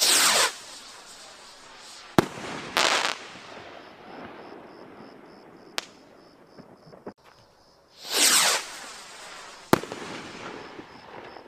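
Klasek Troll firework rockets launching one after another: three rush up with a loud whoosh, and each bursts with a single sharp bang two to three seconds later. A brief crackle trails the last burst.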